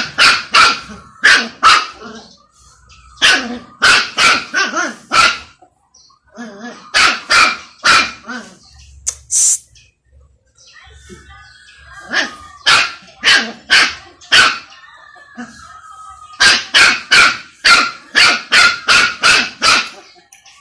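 Puppy barking at an older dog in quick volleys of sharp, high-pitched yaps, five to nine barks at a time with short pauses between; really noisy play-barking that pesters the bigger dog.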